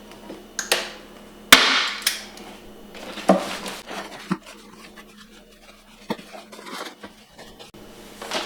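Staple gun firing staples through a plastic pond liner into a wooden trunk: several sharp snaps, the loudest about a second and a half in, with handling knocks between.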